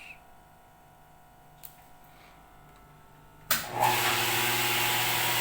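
Raw water feed pump of a water filtration system switching on suddenly about three and a half seconds in, then running steadily: a motor hum over a loud, even rushing noise.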